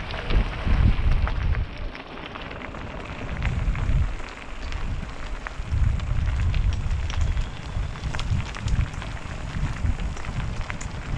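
Electric mountain bike rolling over a loose gravel track: the tyres crunch and small stones crackle and click. Wind buffets the microphone in gusts.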